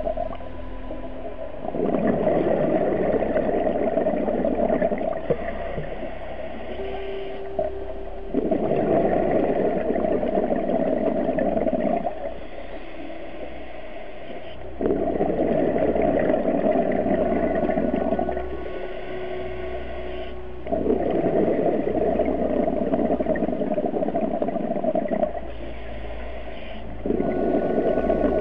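Scuba diver breathing through a regulator underwater: long bubbling exhalations of about four seconds, coming roughly every six seconds, with quieter inhalations between.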